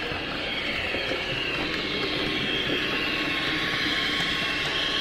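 Model electric train running along the layout track, a steady running hum with wheel-on-rail noise that grows slightly louder as it approaches.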